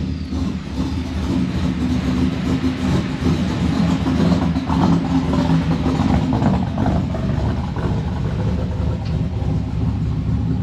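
Third-generation Pontiac Trans Am's V8 idling steadily just after a cold start.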